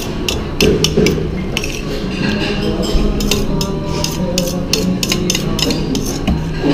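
Metal utensil scraping and clinking against a metal bowl as coleslaw is scooped out, in many quick irregular taps and scrapes, over a steady low background tone.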